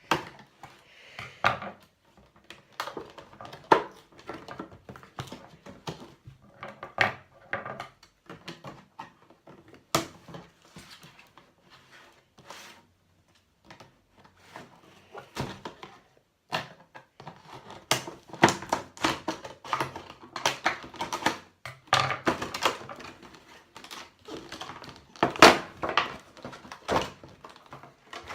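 Hands working at a cardboard toy box and its plastic insert, an irregular run of clicks, knocks, crinkles and scrapes as the packaging is pried and pulled open.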